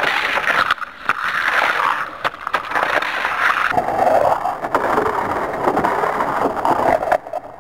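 Hot Wheels Sizzlers cars running on a plastic track: small electric motors whirring and plastic wheels rattling and scraping along the track, with many small clicks. The sound turns lower about four seconds in and drops away near the end.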